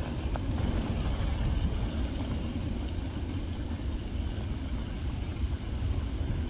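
Wind rumbling and buffeting on the microphone, an uneven low rumble that swells and falls.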